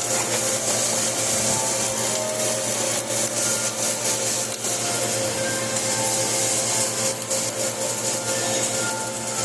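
Flux-cored arc welding: a continuous crackling arc with a steady hum underneath.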